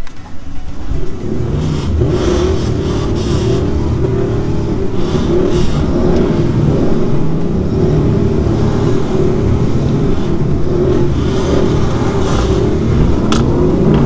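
A field of V8 car engines running together, with drivers blipping the throttles in repeated revs over the steady idle.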